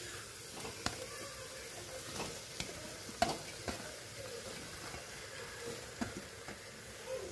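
Faint steady sizzling of masala frying in a pressure cooker, with a handful of sharp clicks and scrapes as fried jackfruit pieces are pushed by hand off a steel plate into it.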